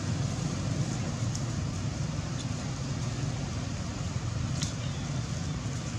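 Steady low background rumble, with a single faint click about four and a half seconds in.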